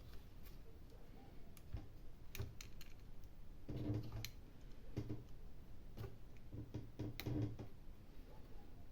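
Scattered light clicks and taps at irregular intervals: small tools and parts being handled on the open tablet as its display cable is connected.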